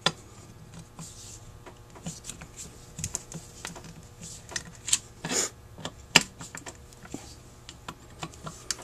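Irregular small clicks and taps of a screwdriver and metal carburetor parts being handled while screws are driven to fasten the throttle body to the float bowl of a Rochester 4GC four-barrel carburetor. There is a short scrape about five seconds in and a sharp click about a second later.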